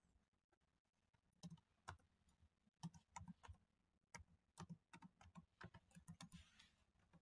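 Faint computer keyboard typing: a quick, irregular run of keystrokes starting about a second and a half in as a word is typed out.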